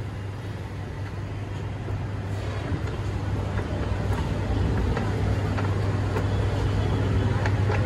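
A steady low mechanical hum under a haze of street noise. It grows slightly louder as it goes, with a few faint ticks near the end.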